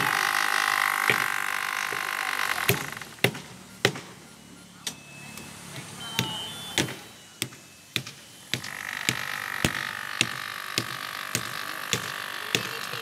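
Repeated sharp knocks, spaced irregularly at first and then coming about two a second near the end. Under them runs a steady noisy hum that cuts out about three seconds in and comes back at about eight and a half seconds.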